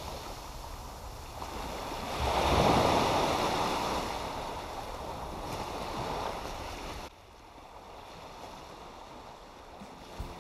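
Small surf washing up on a sandy beach, one wave swelling loudest about two to three seconds in and then receding; the sound drops off suddenly about seven seconds in.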